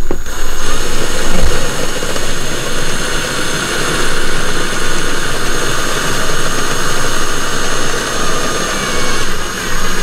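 Cordless drill running continuously under load, boring a hole through a caravan cabinet's wooden side panel.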